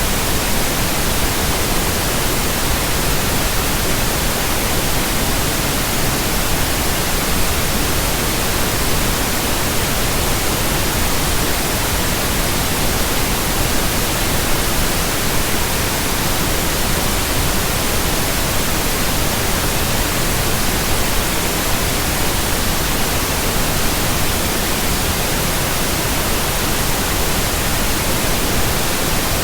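Steady pink noise: an even, unbroken hiss spread across the whole range, played as a sleep and relaxation sound.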